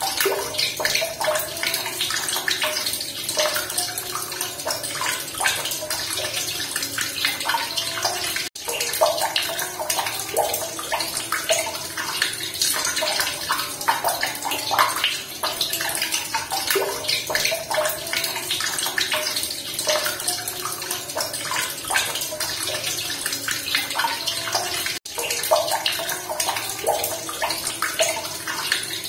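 Running water splashing and bubbling steadily, with a dense, irregular patter of small splashes; it drops out for an instant twice.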